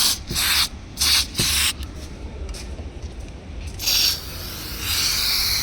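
Aerosol lubricant spray hissing in several short bursts, the last near the end a little longer, as it is sprayed into a car door's window glass run channel to cure power window squeaking caused by water and dirt.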